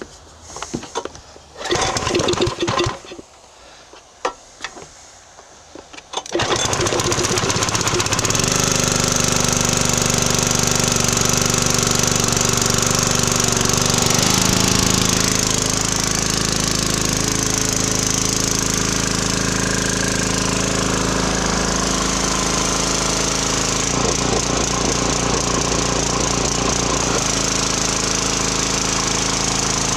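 A Briggs & Stratton pressure washer's small single-cylinder gas engine is pull-started on choke, catching about six seconds in after a few short starting noises. It then runs steadily at high governed speed, its pitch shifting a little a few times as it settles.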